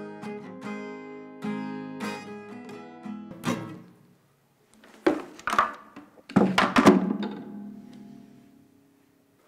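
Black cutaway acoustic guitar played in picked notes and strums, which stop about three and a half seconds in. After a short hush the guitar is swung by the neck and smashed twice, at about five and six and a half seconds, and each blow sets the strings and body jangling and ringing out.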